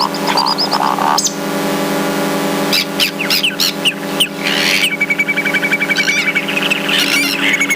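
Electronic noise music: a steady buzzing drone with chirping, bird-like squeals and clicks over it, and a held high tone joining about five seconds in.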